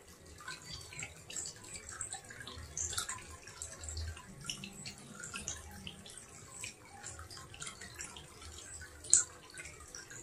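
Water trickling and dripping, with many small irregular drips and splashes and one sharper splash about nine seconds in, as from a small waterfall running into a tank.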